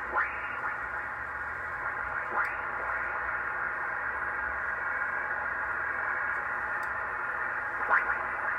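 Hallicrafters FPM-300 transceiver's receiver on the 15-meter band, played through a speaker: a steady hiss of band noise, with three brief whistles that slide in pitch as the tuning dial sweeps across signals. The lively band noise shows the band is no longer deaf, its T403 premixer transformer freshly peaked.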